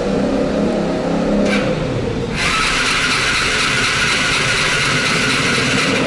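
A maxi-scooter's electric starter cranking for nearly four seconds from about two seconds in, cutting off without the engine catching; the scooter's battery is weak and only half charged. Before it, a car's engine is heard passing.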